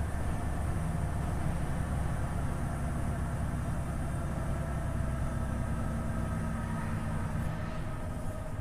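Volvo FH 500 truck's 13-litre straight-six diesel running on the road, a steady low drone with tyre and road noise. Its note shifts a little over halfway through.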